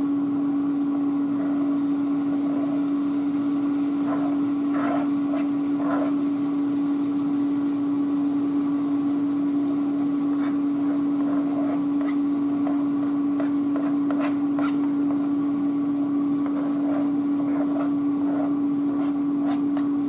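A steady mechanical hum holding one tone, like a fan or appliance motor. Over it, faint scrapes and taps of a serving spoon pushing chopped vegetables off a plastic cutting board into a pot.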